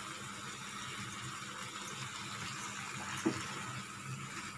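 Pea and paneer gravy simmering in the pan: a steady hiss, with a few light clicks.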